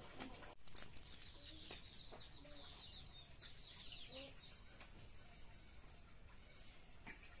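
Chickens clucking in short low notes, with small birds chirping at a higher pitch loudest between about two and four seconds in; a single sharp tap just under a second in.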